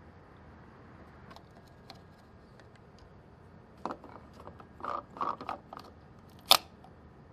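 Car's plastic fuel-filler cap being screwed back onto the filler neck: a run of small irregular clicks and rattles, then one sharp, loud click near the end.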